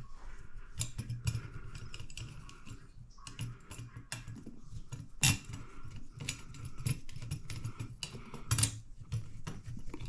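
Small metal clicks and taps of a bolt and a steel ceiling fan mounting bracket being handled while the bolt is started into the ceiling box, with two sharper knocks, about five seconds in and near the end.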